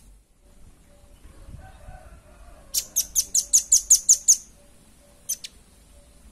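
Velvet-fronted nuthatch calling: a rapid run of about nine sharp, high chips, roughly six a second, lasting about a second and a half, then one short call a second later.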